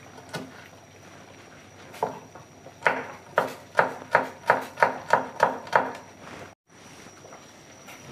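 Knife chopping on a wooden cutting board: a single knock, then a quick run of about nine strokes, roughly three a second.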